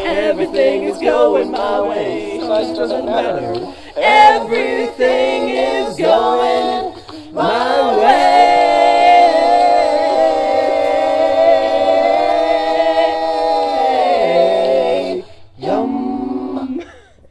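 A small group of voices singing a cappella in harmony: a few short sung phrases, then one long chord held for about seven seconds, followed by a brief pause and a short last sung bit.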